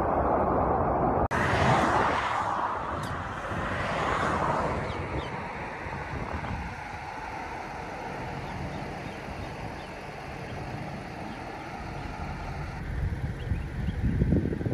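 Muddy floodwater rushing down a wadi, broken off by a sudden cut about a second in. Then a steady outdoor rush with wind gusting on the microphone, strongest near the end.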